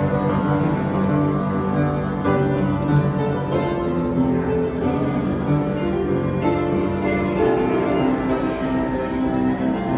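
Background music of held, sustained notes at a steady level.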